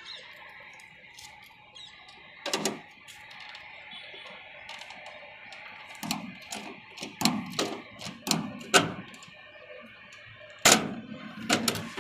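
Long-handled rivet press tool squeezing the fasteners of a vehicle number plate onto a pickup's rear bumper: a series of sharp metal clicks and snaps, irregular and bunched from the middle onward.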